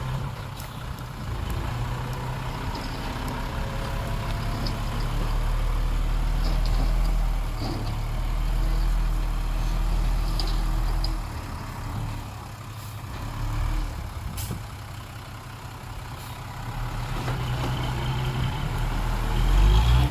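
Heavy diesel engines of earthmoving machinery and a dump truck running. The engine note is louder for several seconds, eases off about halfway through, then builds again to its loudest near the end.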